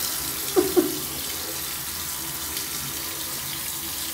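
Tap water running steadily into a sink, a constant hiss. Just under a second in come two short sounds that fall in pitch.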